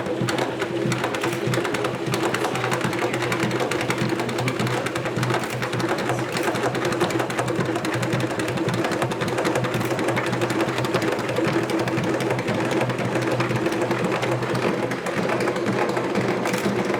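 Tangential honey extractor spinning comb frames: a steady mechanical hum with a fast, even rattle.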